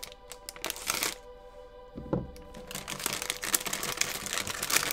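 Thin clear plastic bag crinkling and crackling as it is pulled off a plastic model-kit runner, with steady music-like tones in the background for a moment about a second in.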